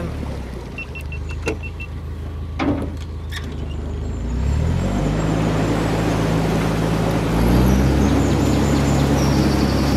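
Narrowboat's diesel engine running low with a few knocks in the first few seconds, then revved up about four seconds in, its note rising and holding, and rising again near the end as power is put on to work the boat around a tight bend.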